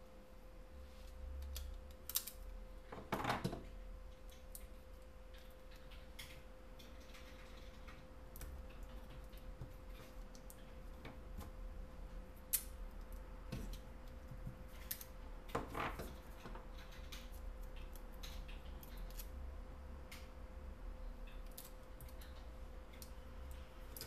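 Amber polyimide tape pulled from its roll, cut with a snap-off utility knife and pressed down onto a phone circuit board by hand: light clicks and taps, with two short rasps about 3 and 16 seconds in.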